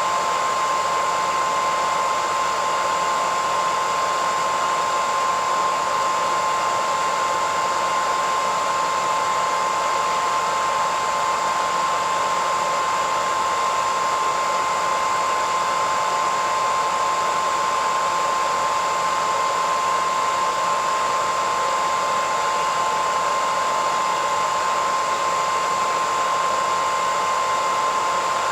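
Hair dryer running steadily: an even rush of air with a constant whining tone from the motor, unchanging throughout.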